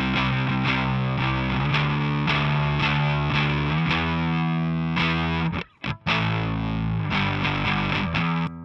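Electric guitar played through a Catalinbread Rah overdrive pedal: distorted picked chords and riffs. There is a brief break a little past halfway, and the playing drops in level just before the end.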